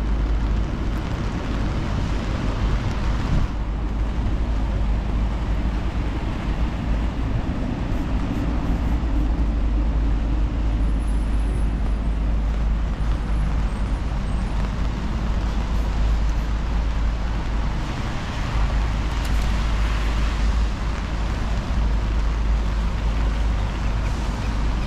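Steady city street traffic: motor vehicles passing in a continuous wash of engine and tyre noise over a constant deep rumble.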